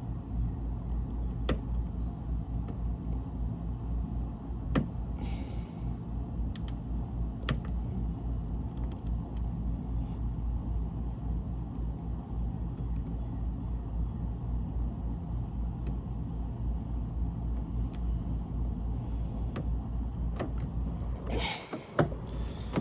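Vehicle engine idling steadily with a low, even pulsing drone, with scattered small sharp clicks on top and a short rustling burst near the end.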